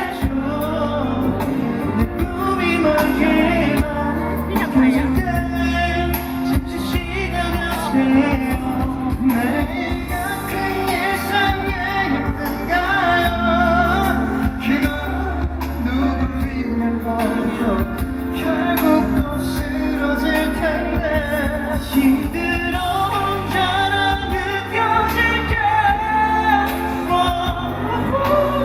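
Live pop music with singing over a full band backing, amplified through a stadium sound system.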